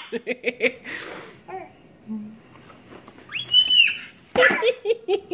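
Baby babbling in short high-pitched vocal sounds, then a long shrill squeal about three seconds in that rises and falls, followed by more babbling.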